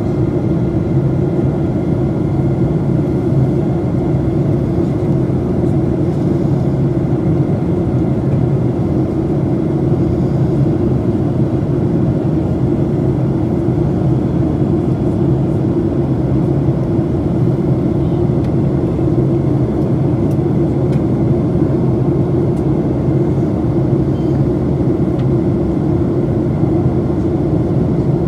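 Steady jet engine and airflow noise inside an airliner cabin, a loud, even low rumble heard from a window seat beside a wing-mounted turbofan engine in flight.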